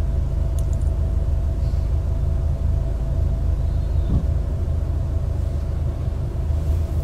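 Steady low rumble of a moving car, heard from inside the cabin, with a faint steady hum over it.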